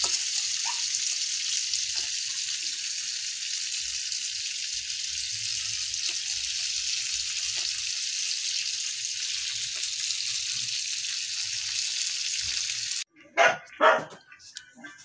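Dried fish (tuyo) frying in hot oil in a wok, a steady sizzle that cuts off suddenly about 13 seconds in. A dog then barks a few times near the end.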